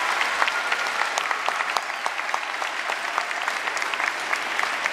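Applause: many people clapping steadily at the close of a performance.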